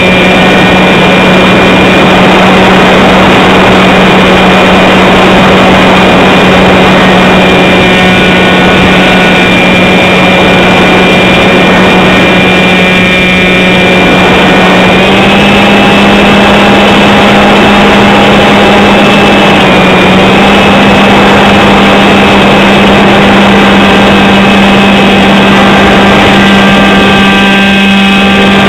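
Model airplane's motor and propeller, very loud and close as heard from a camera mounted on the plane, running at a steady throttle over a rush of wind. The pitch steps up slightly about halfway through and dips for a moment a few seconds later.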